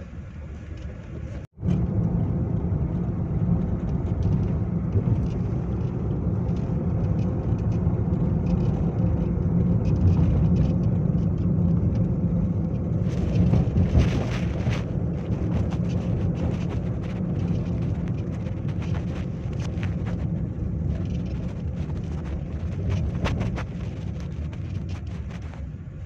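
Storm wind rumbling steadily over the microphone during a heavy snowfall, cutting out sharply for an instant about a second and a half in and then coming back louder, with scattered faint clicks around the middle.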